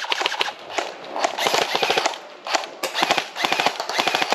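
Airsoft rifles firing rapid bursts: several fast strings of sharp clacks, one after another.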